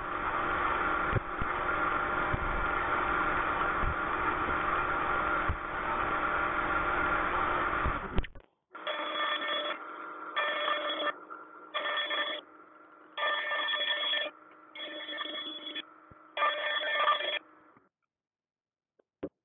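Wood router mounted in a router table, running at speed while wood is fed past the bit. For about eight seconds it makes a dense cutting sound. Then comes a steady whine with six short spells of cutting about a second and a half apart, before it stops about 18 seconds in.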